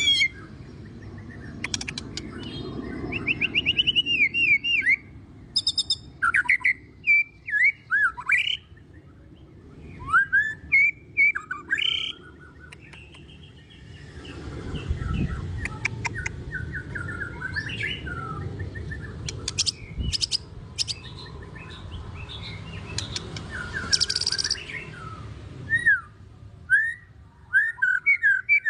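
White-rumped shama singing a varied song of rich whistles, quick trills and sharp clicks, phrase after phrase with short gaps, its song filled with many different motifs.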